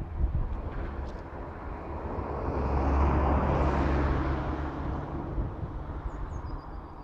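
A motor vehicle passing by, its rushing noise and low engine hum swelling to a peak about three to four seconds in, then fading away.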